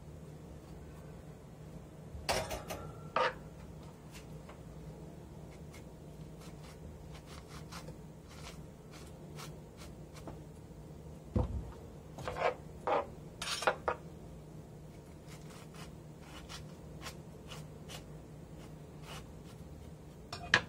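Scattered clicks, taps and light scrapes of a kitchen utensil on cucumber and a wooden cutting board, in a short cluster about two seconds in and another around twelve to fourteen seconds in, with a dull thump just before the second cluster. A steady low hum lies underneath.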